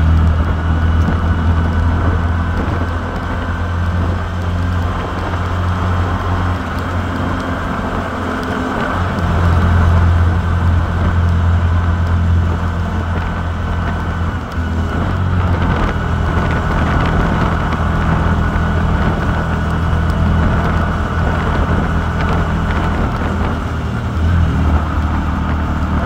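A moving road vehicle's engine and tyre noise: a steady low engine drone under a constant rush of road noise.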